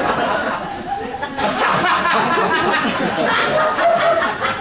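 Audience laughing and chuckling, many voices at once.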